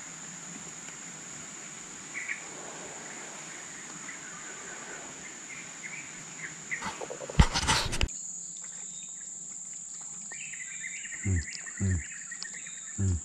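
Steady high-pitched drone of insects in tropical forest, with scattered small bird chirps. A brief loud burst of noise comes about seven and a half seconds in, and three short low falling calls come near the end.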